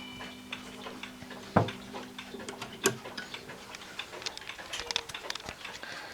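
The chime of a Waltham 31-day spring-driven wall clock dying away after a strike, followed by irregular clicks and light ticks, with two stronger clicks about one and a half and three seconds in.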